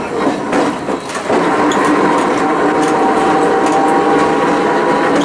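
Iyotetsu 50-type tram's nose-suspended traction motors running under power, a steady whine that sets in about a second in, over wheel-on-rail noise with a few short clicks.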